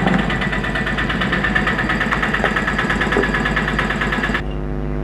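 Steady mechanical running of a small motor, with a fast even pulsing. About four seconds in it abruptly changes to a smoother, duller hum.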